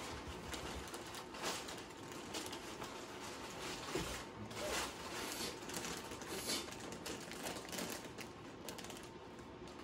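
Light rustling and irregular small clicks and crinkles as cats move about on plastic bags of dry cat food and in cardboard boxes, growing a little fainter near the end.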